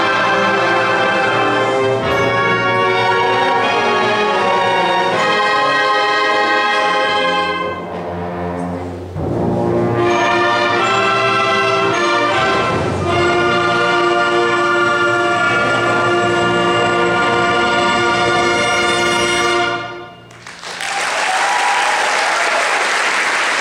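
School concert band playing, brass to the fore, on long sustained chords. The music ends about twenty seconds in and audience applause follows.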